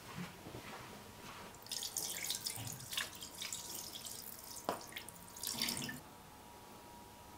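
Water running and splashing as hands are washed under it, with a few sharper splatters; it stops about six seconds in.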